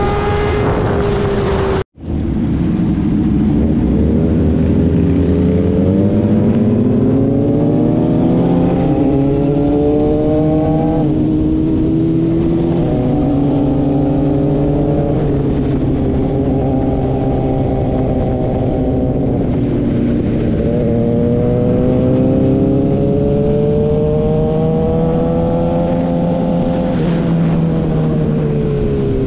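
Sport motorcycle engine heard from the rider's seat, accelerating up through the gears. Its pitch climbs and drops sharply at each upshift, then winds down near the end. The sound cuts out for an instant about two seconds in.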